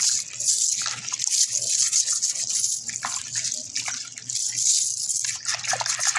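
Soapy water sloshing and splashing in a plastic basin as a bronze antique-coin chain is rinsed by hand, its links clinking now and then.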